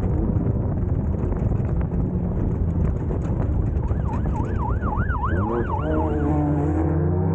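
Class 1600 off-road race car's engine running hard, with a wavering siren rising and falling rapidly for about two seconds in the middle.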